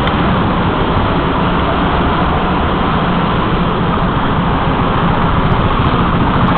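Go-kart engines running in an indoor karting hall, a steady, loud mix of engine noise.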